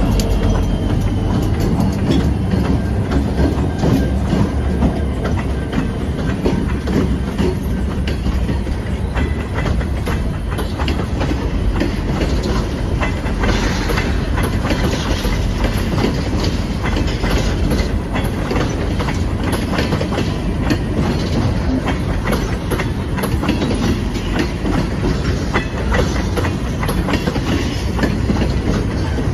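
Train rolling along the track: a steady low rumble with rapid clicking of wheels over rail joints.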